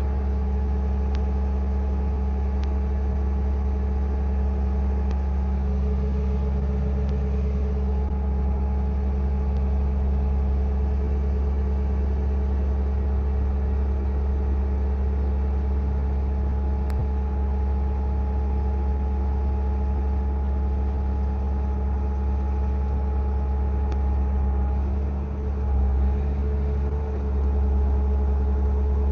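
Bobcat S650 skid steer's diesel engine running steadily under throttle, a constant low drone with a steady whine over it, dipping briefly and picking up again near the end.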